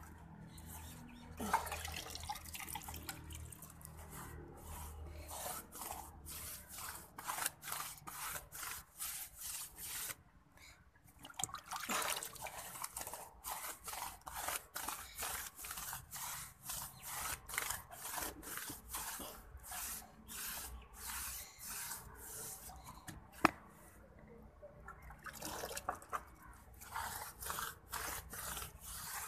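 A paintbrush scrubbing paint onto a rough, bare brick wall: runs of quick, scratchy strokes broken by a couple of short pauses. One sharp tap about two-thirds of the way through.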